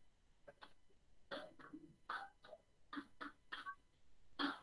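Chalk writing on a blackboard: about a dozen short scratching strokes and taps in an irregular rhythm as a formula is written.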